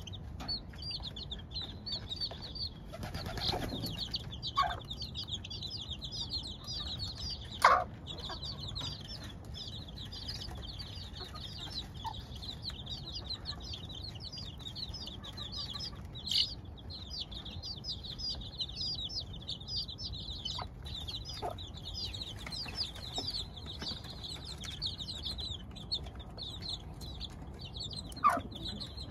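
A brood of two-week-old chicks peeping constantly, many short high chirps overlapping every second. A few louder sharp sounds stand out, the loudest about eight seconds in.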